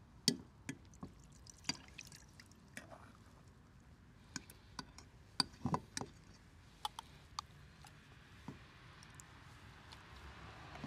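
Irregular light clicks and taps of a utensil against a glass jar, with wet sounds from the home-canned beef stew and its broth.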